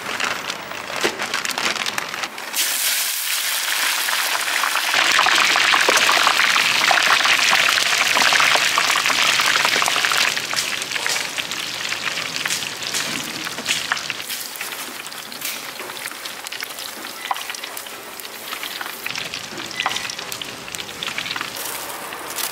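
Hot oil in a deep fryer sizzling hard around battered fried snacks. It swells about two seconds in, is loudest for several seconds, then settles to a lower, steady hiss, with light metal clinks from the wire strainer.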